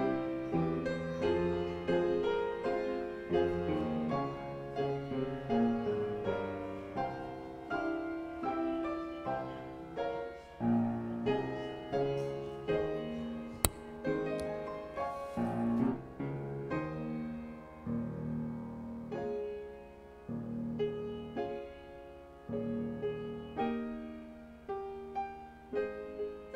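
Grand piano playing a slow piece in chords, with one sharp click about halfway through.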